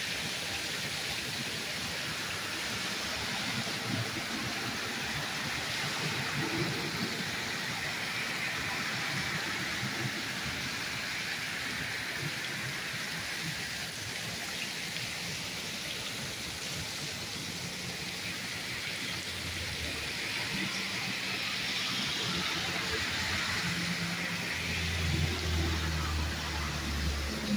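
Heavy, torrential rain pouring down in a steady hiss. A low rumble builds over the last several seconds.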